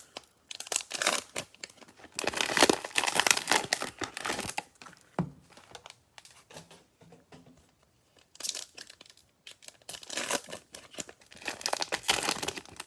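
Cellophane wrapper of a trading card pack being torn open and crinkled, in two long stretches of rustling with a single sharp click about five seconds in.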